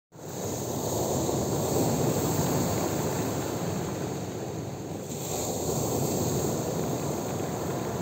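Rough sea surf breaking and washing up a pebble beach in a steady rush, swelling louder as waves come in about two seconds in and again about six seconds in.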